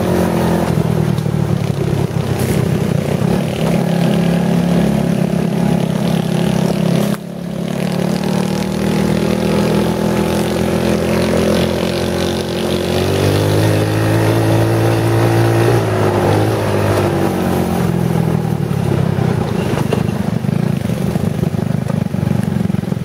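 Off-road vehicle engine running while driving along a dirt trail, with a short drop in level about seven seconds in; a little past halfway the revs climb and hold for a few seconds, then ease back down.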